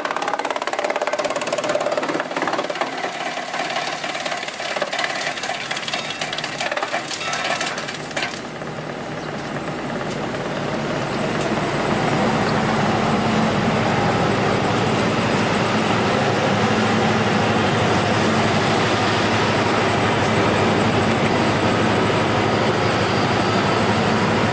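Electrically driven ŻEFAM DVBA wood chipper chewing through a log: a dense crackle of chipping for about the first eight seconds. Then the log is used up, and the machine runs empty with a steady hum and a high whine.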